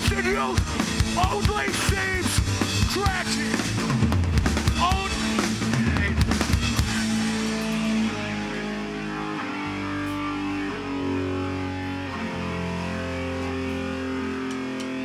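Hardcore band playing live: pounding drums, electric guitars and bass with shouted vocals. About eight seconds in the drums drop out and the guitars and bass ring on with held notes in a quieter passage.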